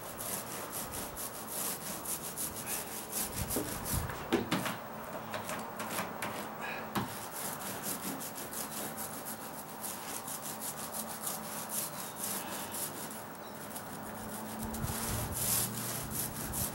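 A paint roller on an extension pole rolling a first coat of paint onto a bare plywood deck floor, in repeated back-and-forth strokes, with a single knock about four seconds in.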